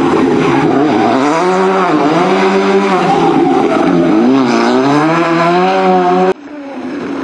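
World Rally Car's 1.6-litre turbocharged four-cylinder engine revving hard as the car drives past. The pitch climbs, dips twice and climbs again. The sound cuts off abruptly about six seconds in, leaving quieter engine noise.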